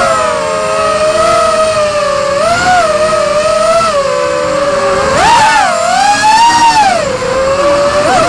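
Racing quadcopter's four Emax RS2205 2300kv brushless motors spinning three-blade 5-inch props: a buzzing whine made of several close pitches that rise and fall with throttle, surging higher about five seconds in and dipping again before the end.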